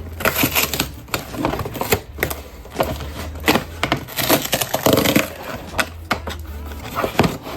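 Packaging of a plush toy being handled and opened, with irregular crackling, clicking and scraping.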